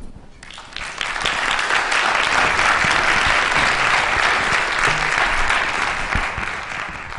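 Audience applauding: clapping swells in over the first second, holds steady and loud, then begins to thin out near the end.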